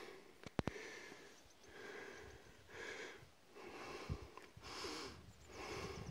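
Heavy breathing close to the microphone, a breath about once a second, with a few sharp handling clicks about half a second in.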